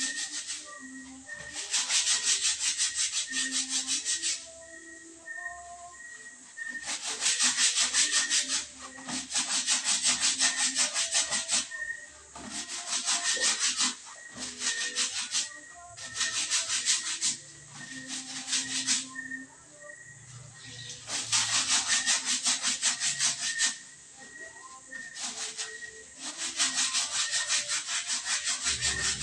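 Laundry being scrubbed by hand, wet fabric rubbed hard against fabric in quick strokes. It comes in repeated bursts of one to three seconds with short pauses between.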